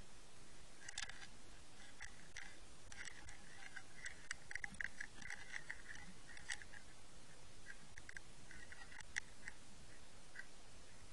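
Faint, irregular clicking and ticking picked up by a microphone underwater, in scattered quick clusters with a few sharper single clicks.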